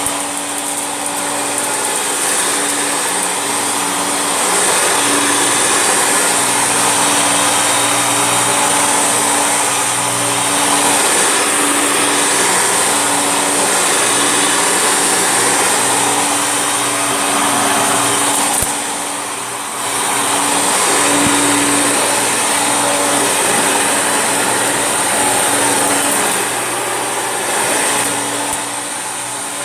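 Vacuum cleaner motor running steadily with a high airflow hiss and a steady hum. It eases off briefly about two-thirds of the way through, then comes back up.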